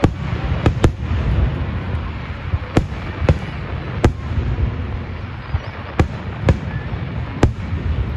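Aerial firework shells bursting, about nine sharp booms at irregular intervals over a continuous low rumble.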